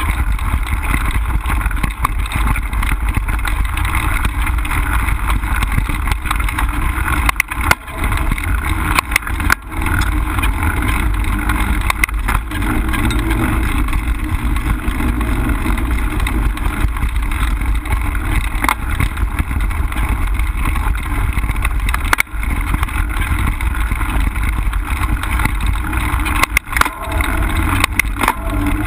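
Mountain bike riding over a dirt trail: a steady rumble of wind on the microphone and tyres rolling on dirt, with a few sharp knocks and rattles from the bike over bumps.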